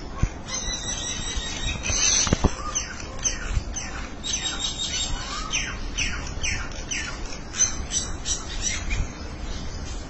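Several common mynas calling to each other. A harsh squawk comes about two seconds in, then a quick run of short, sharp, downward-sliding calls from about four to nine seconds.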